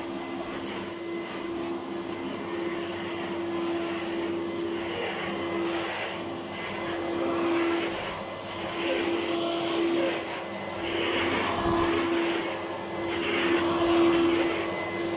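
A 1998 Electrolux Power System Z1740 upright vacuum cleaner running. There is a steady motor whine, with a rush of air that swells and fades every second or two.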